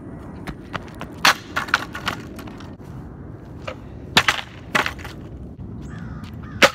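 A broken longboard flipped and thrown onto a concrete path, clattering and slapping down in several sharp cracks, the loudest near the end, over a steady low outdoor rumble.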